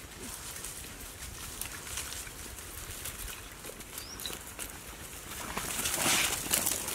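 Dry leaves, twigs and brush rustling and crackling underfoot as a person and dogs move through the undergrowth, swelling into louder, denser rustling about five and a half seconds in as they come close.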